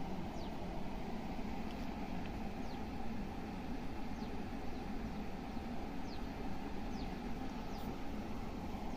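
Steady low background rumble with a few faint, short, high falling chirps of small birds scattered through it.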